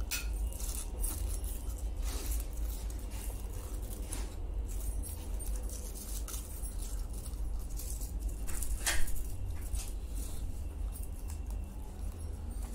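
Aluminium foil crinkling and tearing in short crackles as the wrapping is peeled back from a chicken roll, with one sharper crackle about nine seconds in, over a steady low hum.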